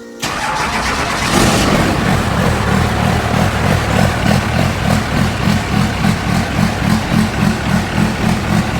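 An engine running loudly and steadily, with a regular low throb about twice a second, starting abruptly just after the beginning.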